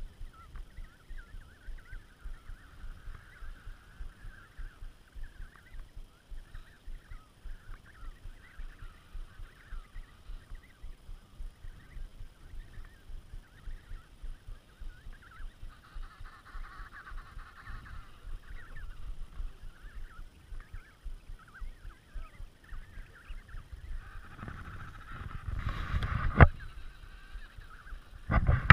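Emperor penguin colony calling: a dense chorus of short, high chirping calls. Under it, footsteps crunch on snow about twice a second. Near the end there is a loud rumble and a sharp knock on the microphone.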